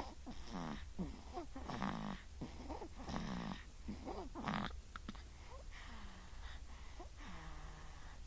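A 1.5-month-old baby snoring in sleep: short, pitched snorting breaths about twice a second, which turn fainter and longer about five seconds in.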